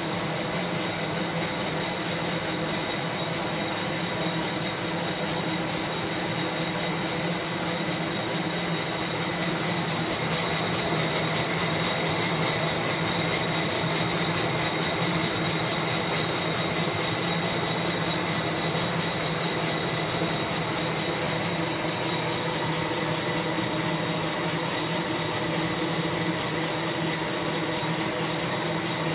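Fracino Roastilino coffee roaster running with a steady whir while beans churn in its glass roasting chamber, getting a little louder for a while midway.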